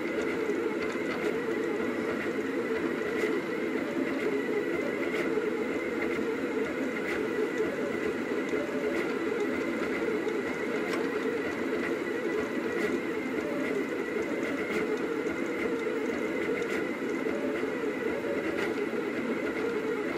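Rostock delta 3D printer running a print: its stepper motors make a steady, warbling mechanical hum, with a faint click about every two seconds.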